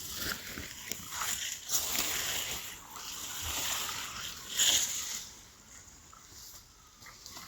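Dry twigs and brush rustling and crackling as sticks are gathered by hand, with a louder crackle a little past the middle and quieter rustling toward the end.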